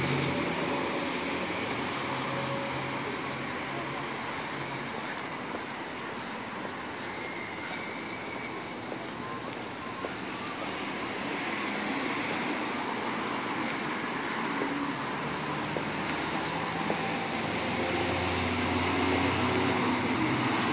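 City road traffic at night: cars driving past on a wide street, a steady rush of tyre and engine noise. A low engine drone swells near the end as a vehicle passes closer.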